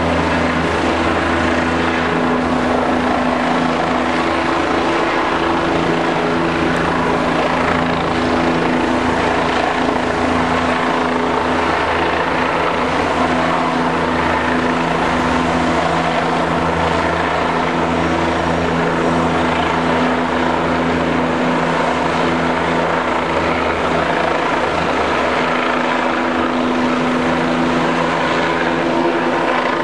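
Helicopter hovering overhead with a long line hanging below, its rotor and engine running in a loud, steady drone with a constant hum.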